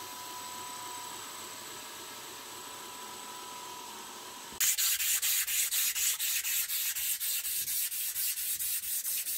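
A steady faint hiss with a thin whine, then, about halfway through, a strip of abrasive paper pulled back and forth around a linen micarta knife handle, shoeshine-style. The hand sanding runs in even strokes, about four a second.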